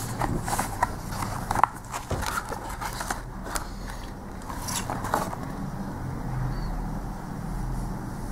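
Stiff card and paper of a stamp presentation folder rustling and clicking as it is handled, with a cluster of sharp clicks over the first five seconds or so, then only a steady low hum underneath.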